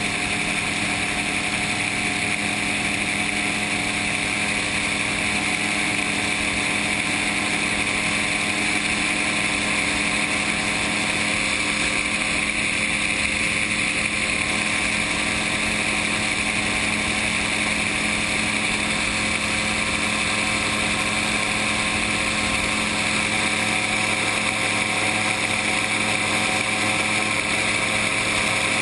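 Gyrocopter in flight: its engine and propeller drone steadily at an even pitch, over a constant rush of air.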